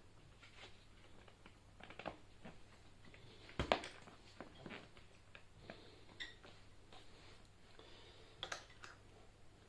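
Tyre levers and hands working a tyre bead over the rim of an e-scooter's rear wheel: scattered clicks and light knocks, with one louder knock a little under four seconds in.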